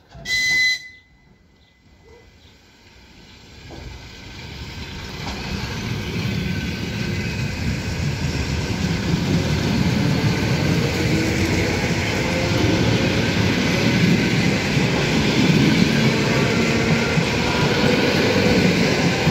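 An ED9M electric multiple unit gives a short high-pitched whistle blast, then comes up and passes close by. Its wheels and running gear rumble on the rails, building up over the first several seconds and then running loud and steady.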